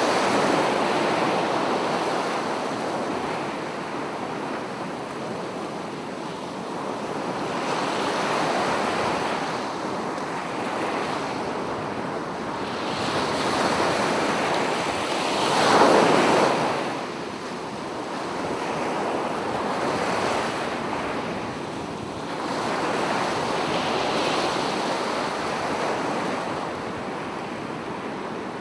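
Ocean waves breaking and washing up on a sandy beach, the surf swelling and receding every few seconds, with the loudest wave about halfway through. Wind is heard over it.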